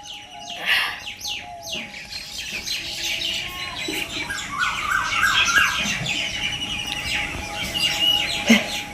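Many small birds chirping and calling over one another in a dense chorus, with a faint steady tone underneath.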